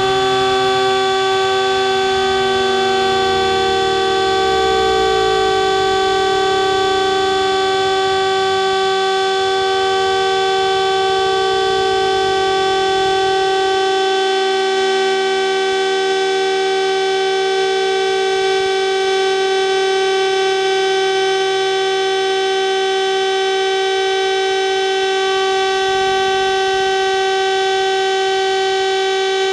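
Electric rotary sirens sounding the steady all-clear (Entwarnung) tone: one siren holds a constant pitch while a second winds down, its pitch falling over roughly the first fourteen seconds before only the steady tone remains.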